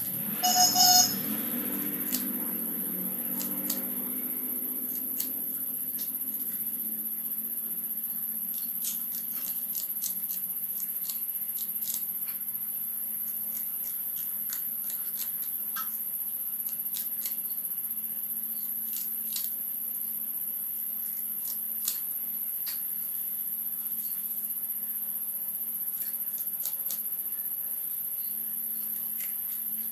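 Small scissors snipping the fins off snakehead fish: scattered sharp clicks of the blades closing, over a steady low hum. A brief loud pitched sound stands out about half a second in.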